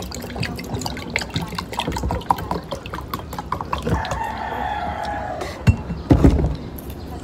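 A rooster crowing once, about four seconds in, a single call of just over a second that drops in pitch at its end. Before it come many small clicks and smacks of eating, and after it a couple of louder knocks, the loudest sounds here.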